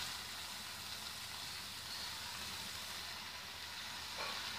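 Masala-coated chicken sizzling in an open aluminium pressure cooker on the stove: a steady, even hiss of the marinade cooking down in the pot.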